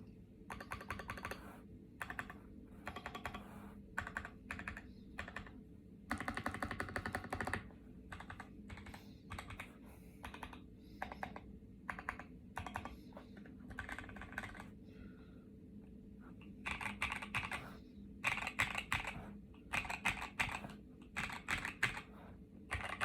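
Typing on a KBDfans D84 mechanical keyboard with lubed Boba U4T tactile switches and KAT-profile keycaps: runs of keystrokes separated by short pauses, with a dense, fast run about six seconds in and louder clusters in the last third.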